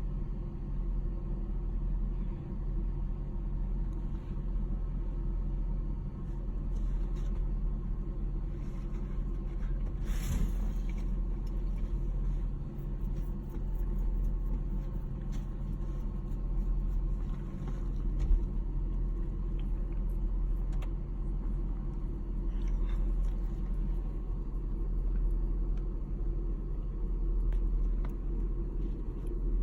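Steady low rumble of a car driving, heard from inside the cabin as engine and road noise. A short rush of noise comes about ten seconds in.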